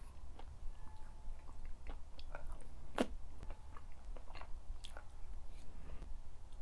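A person chewing food close to the microphone: soft, wet mouth clicks at an uneven pace, with one louder click about three seconds in.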